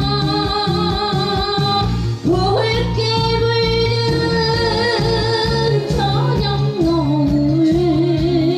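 A woman singing a Korean song into a microphone over a recorded backing track with a steady beat, holding long notes with vibrato.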